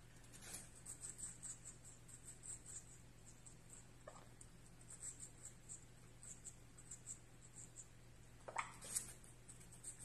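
Nanday conure nibbling a wedge of fruit: faint, quick clicking and scratching of beak on fruit and cage bars, with a short louder sound about four seconds in and another near the end.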